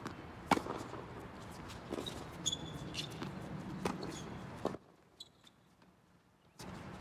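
Tennis rackets striking the ball in a doubles rally: sharp single pocks about every one and a half to two seconds, the loudest about half a second in. About two-thirds of the way through, the sound drops to near silence for nearly two seconds.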